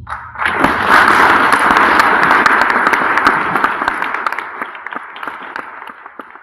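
A congregation applauding. The clapping breaks out suddenly, swells to full strength within about a second, then slowly dies down.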